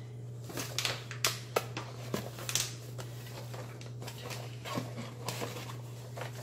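Paperboard cookie box being folded and assembled by hand: rustling with a series of short, sharp clicks and taps as the flaps are creased and pressed into place, mostly in the first three seconds. A steady low hum lies underneath.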